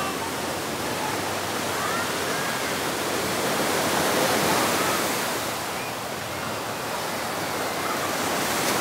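Surf washing onto the beach: a steady rush of breaking waves that swells about halfway through and then eases.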